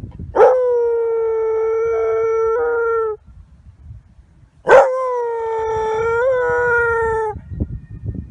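German Pinscher howling twice, two long calls of steady pitch, each nearly three seconds, in answer to a siren.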